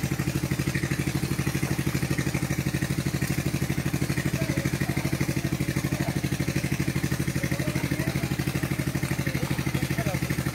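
A small engine running steadily with an even, rapid throb.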